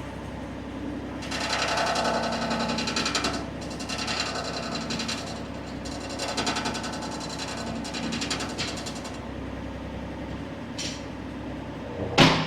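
John Deere 35G mini excavator running while its new hydraulic thumb is worked, with four spells of rapid rattling, hissing hydraulic noise over the steady engine hum as the thumb cylinder moves, a circuit the operator thinks still has some air in it. A single sharp, loud knock comes near the end.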